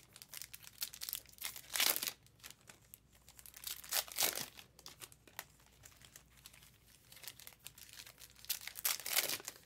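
Foil trading-card pack wrappers crinkling and tearing as packs are opened, with the rustle of cards being handled. It comes in short, irregular bursts, the loudest about two seconds in and about four seconds in.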